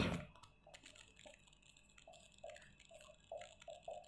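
Marker pen squeaking faintly on a white writing board in a string of short strokes as words are written, after a brief louder sound right at the start.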